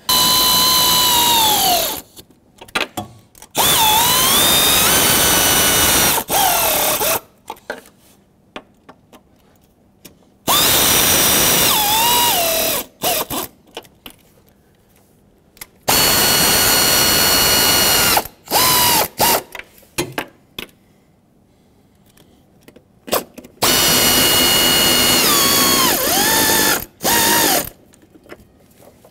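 Power tool running valve cover bolts down in five runs of a few seconds each, its whine dropping in pitch at the end of each run as the bolt bottoms out and the tool slows. Light clicks between runs as the tool is moved from bolt to bolt.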